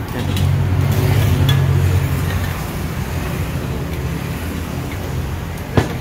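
Low, steady rumble like passing road traffic, louder for the first two seconds, with one sharp metallic clink near the end.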